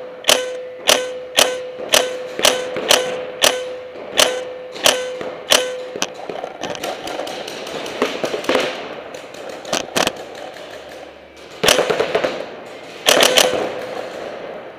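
Paintball marker firing: sharp shots about two a second for the first six seconds, then a looser patter of shots and hits, and two rapid-fire bursts near the end.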